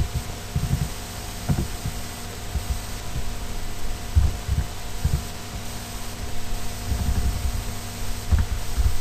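Irregular muffled thuds of keyboard typing picked up through the desk by the microphone, over a steady electrical hum.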